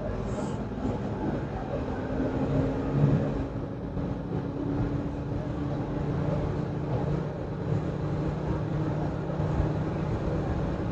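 In-cab sound of a 2013 Ford F-450 driving on the road: its 6.8-litre V10 gasoline engine runs steadily under tyre and road noise.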